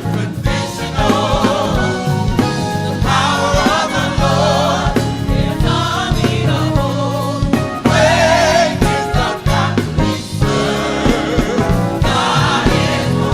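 Gospel choir singing in full voice, backed by a band with drum kit and bass.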